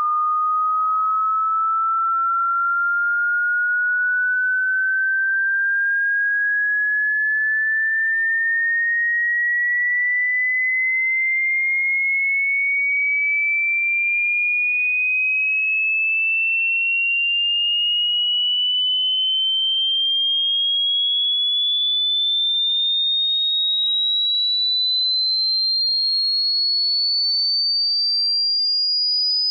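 A single pure electronic sine tone gliding slowly and evenly upward in pitch, from a high whistle to a shrill, piercing tone, at a constant loudness: a frequency sweep played as a hearing test.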